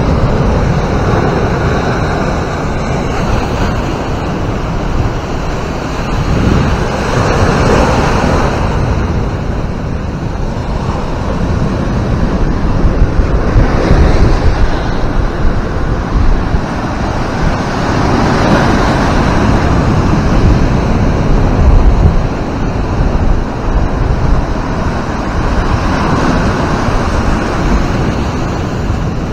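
Ocean surf breaking and washing up against rock boulders and sand, a rushing wash that swells every several seconds. Wind buffets the microphone with a low rumble underneath.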